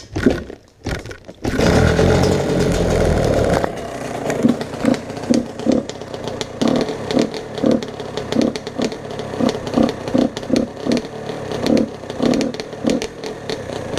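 Yamaha dirt bike engine kick-started on choke: a few knocks from the kick-starter, then the engine catches about a second and a half in. It runs high for about two seconds, then drops to an uneven idle that pulses about twice a second.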